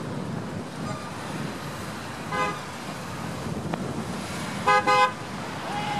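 A vehicle horn toots once briefly about two and a half seconds in, then twice short and loud near the end, over a steady background rush of traffic and wind.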